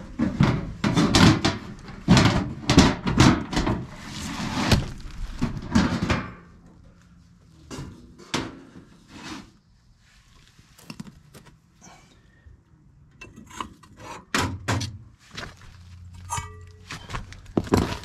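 A dense run of knocks, thunks and rattling as the insulated cover is taken off a homemade wooden box smoker, followed by scattered lighter knocks and clicks as the smoker is handled.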